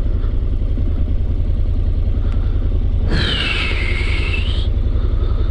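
Honda NC750X's parallel-twin motorcycle engine running at low revs with a steady, pulsing low rumble. About three seconds in, a high-pitched sound joins for a second and a half, its pitch falling and then levelling off.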